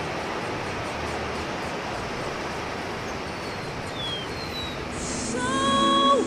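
Steady outdoor rushing noise with a few faint high chirps around the middle; music with long held notes fades in about five seconds in.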